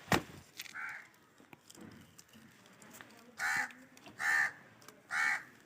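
A crow cawing: one faint caw about a second in, then three loud harsh caws in quick succession in the second half. A single knock sounds right at the start.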